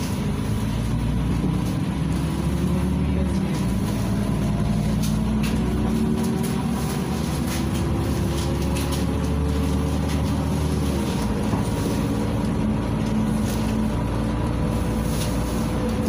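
Inside a LiAZ 5292.67 city bus under way: the YaMZ-53624 engine drones and climbs in pitch as the bus gathers speed, then drops as the ZF 6AP-1200B automatic gearbox shifts up, about three seconds in and again about eleven seconds in, over steady road and tyre noise and a faint whine.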